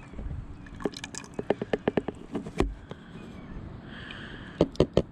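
Head-gasket sealer (K-Seal) glugging and dripping from its bottle into the radiator filler neck: quick runs of drips and ticks, from about a second in and again near the end.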